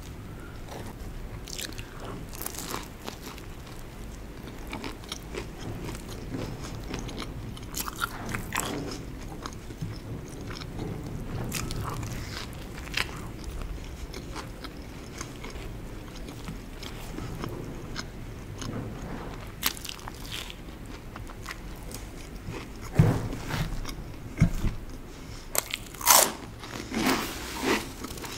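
Eating sounds: a stuffed bread torn apart by hand, then bitten and chewed with scattered crackly bites. A louder cluster of bites comes near the end.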